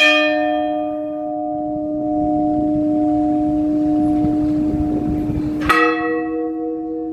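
Church bells from 1790 tolled as a slow, spaced funeral toll: two strokes about six seconds apart, each ringing on long with a low hum. This intermittent tolling is the signal that a funeral (exequias) is to be held.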